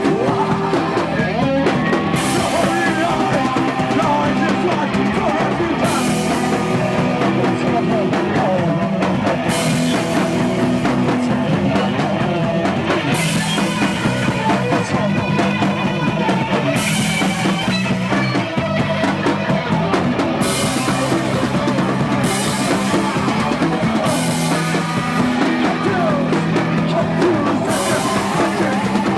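Live rock band playing loudly: drum kit, guitar and bass. Stretches of bright cymbal wash come and go every few seconds.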